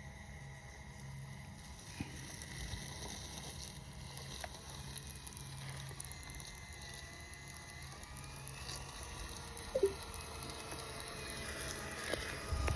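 Small brushless electric motor of a 1/18-scale RC crawler whining faintly as it drives, its pitch rising slightly partway through, with a light crackle of tyres over the ground and one sharp click about ten seconds in.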